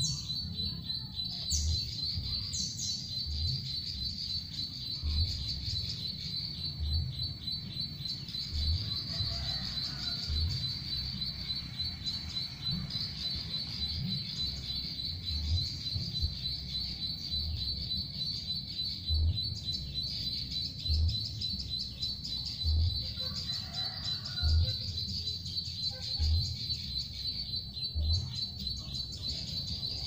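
Small birds chirping over a steady high insect-like trill, with soft low thumps repeating about every two seconds.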